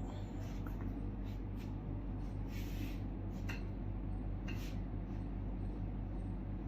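Steady low hum with a fast, regular flutter, and two short rustling noises about two and a half and four and a half seconds in.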